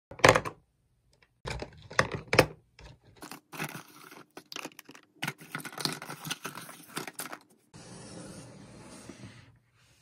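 Pens, markers and other stationery being dropped and rattled into a clear plastic desk organizer: a few loud clacks in the first couple of seconds, then a run of smaller clicks and clatters. Near the end, about two seconds of steady scraping as the plastic organizer is slid across the desk.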